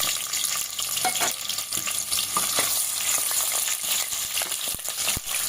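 Potatoes frying in hot oil in a pan: a steady high sizzle with many small crackles and pops.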